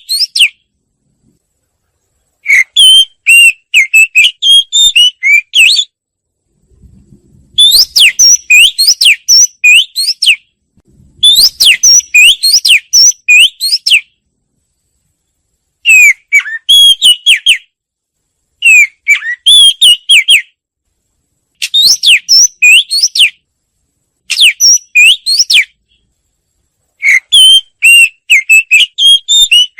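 Wagtail (chìa vôi) singing: about eight loud phrases of quick, high whistled and sweeping notes, each one to three seconds long, with short silent pauses between them.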